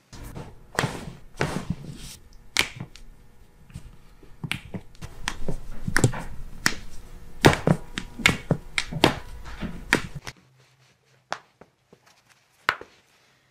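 A rapid series of sharp cracks and pops from the joints of the foot and ankle being manipulated during chiropractic adjustments, some in quick clusters, with hand-handling noise. After about ten seconds the background drops away and only a couple of single clicks remain.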